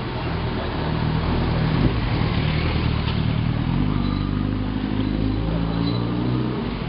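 Motor vehicle engine running close by, a steady hum that shifts in pitch about four seconds in.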